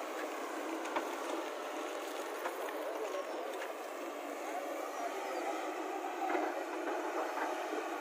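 JCB tracked excavator's diesel engine running steadily under work as the machine swings and digs, with a light knock about a second in.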